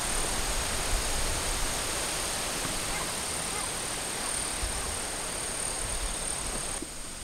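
Gusty wind rushing steadily through the surrounding trees and foliage, with occasional low buffeting on the microphone: the wind rising as a typhoon approaches.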